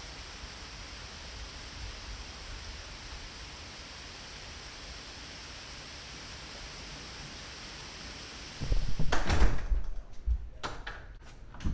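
A faint steady hiss, then, about eight and a half seconds in, loud thumps with a low rumble lasting over a second, followed by a few sharp knocks.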